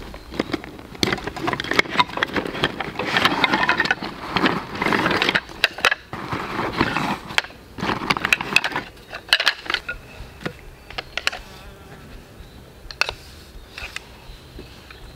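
A backpack zipper being pulled open and gear rustling and clattering as wooden poles are drawn out of the pack. The handling is busiest in the first nine seconds, then dies down to a few light knocks.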